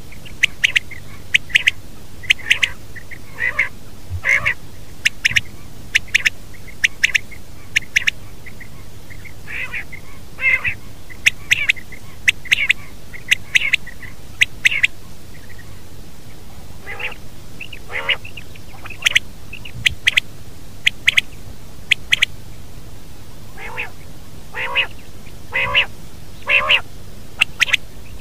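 Male common quail calling over and over: sharp, clipped notes in quick groups of two or three, with softer, lower arching notes between them, most of all in the second half. A faint steady low hum runs underneath.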